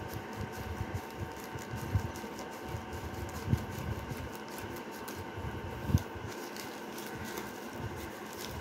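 Scissors snipping through a plastic courier mailer bag, with plastic crinkling and rustling as the bag is handled. A few dull thumps come about two, three and a half, and six seconds in.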